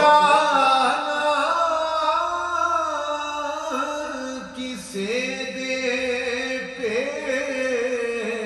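A man singing a devotional naat solo and unaccompanied, in long, ornamented held lines, with a short breath about four and a half seconds in.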